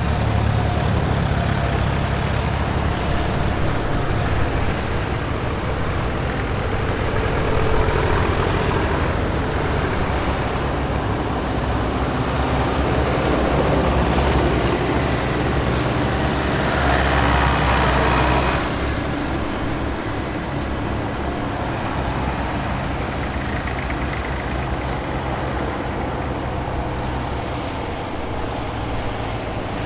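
Vintage tractor engines running as the tractors drive past one after another, a steady low engine drone. It grows louder and harsher a little past halfway, then drops off suddenly.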